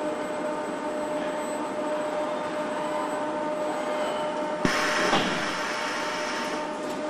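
Steady hum of car-factory assembly machinery, with a constant tone running through it. About two-thirds of the way in there is a sharp click, then a brief hiss lasting about half a second.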